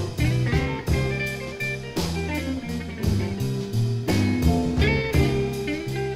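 Electric Chicago blues band playing an instrumental break: electric guitar over bass and drums, with drum hits keeping a steady beat.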